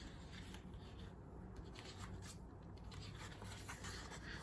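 Faint rustling of a thin patterned paper sheet as it is lifted and turned over in a pad, with a few soft crinkles.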